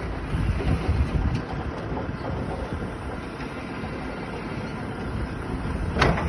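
Tractor-driven vertical feed mixer wagon running steadily with the tractor's engine, while its hydraulic loading bucket lifts a load of straw up to the mixer tub. A single sharp clank near the end as the bucket reaches the top.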